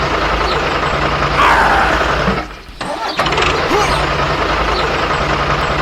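Vehicle engine running steadily. It drops out for a moment about two and a half seconds in, then starts up again.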